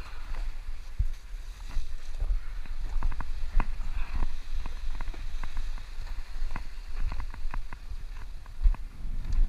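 Irregular scrapes, knocks and shoe scuffs of a person clambering over rocks, over a steady low rumble of wind and handling on the microphone.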